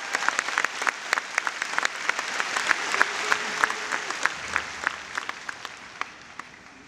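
Audience applauding: dense clapping that thins out and fades away over the last couple of seconds.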